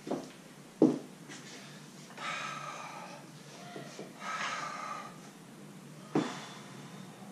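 A weightlifter breathing hard as he sets up over a heavy barbell: a few short, sharp breaths and two longer, noisier breaths about two and four seconds in.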